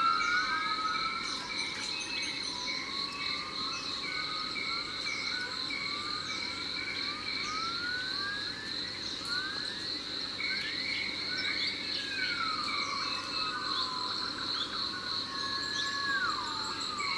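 Tropical jungle ambience: insects keep up a steady high-pitched drone, a second lower insect trill comes and goes, and birds call over it with many short whistles sliding up and down in pitch.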